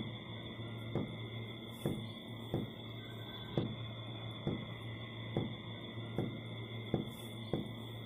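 Soft low thumps repeating about once a second, over a steady high-pitched tone and a low hum.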